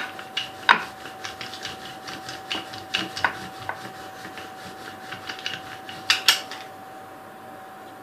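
Rolling pin clicking and knocking irregularly against the rolling board as a ball of puri dough is rolled out, with two louder knocks close together near the end. A faint steady hum runs underneath.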